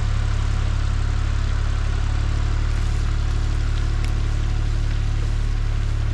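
Tractor engine running steadily at a constant, low-pitched idle-like speed.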